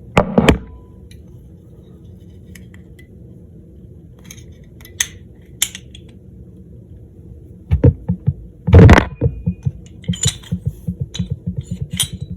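Parts of a field-stripped pistol being handled: scattered sharp metal clicks and clatter, two loud knocks about eight and nine seconds in, then a run of quick small clicks near the end.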